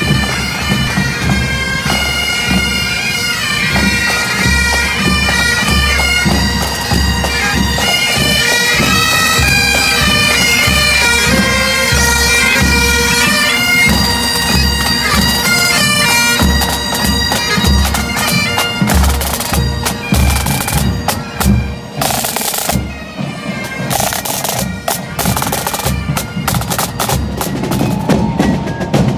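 Highland pipe band playing: bagpipes carry the melody over their steady drones, with a regular bass drum beat and side drums underneath. In the last several seconds the pipes fade and rapid, crisp drum strokes take over.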